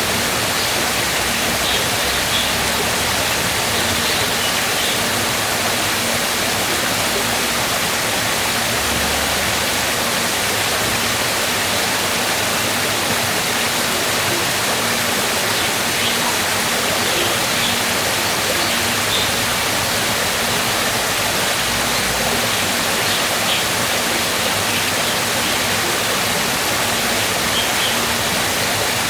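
Waterfall: water falling and rushing in a steady, even roar, with a few faint short high chirps now and then.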